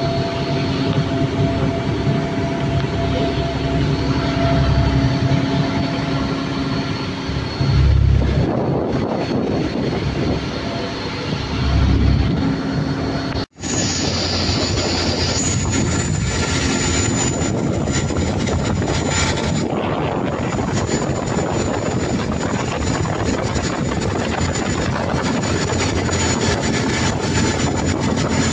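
Motor yacht underway at speed: a steady engine drone mixed with the rush of the bow wave and spray along the hull, with low buffeting of wind on the microphone. About halfway it cuts out for a moment and resumes as a steadier rushing noise with a faint high whine.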